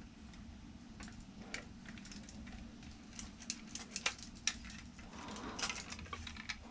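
Light clicks and rattles of a hand-held reach grabber tool being handled, with a few sharp ticks about three to four and a half seconds in and a rustle about a second later, over a low steady hum.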